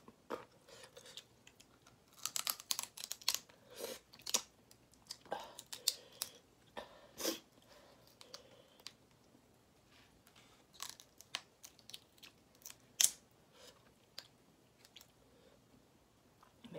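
Close-miked eating sounds of spicy shell-on shrimp: shells cracking and being pulled off by hand, with wet chewing. They come in clusters of sharp crackles and clicks, and the sharpest snap is about thirteen seconds in.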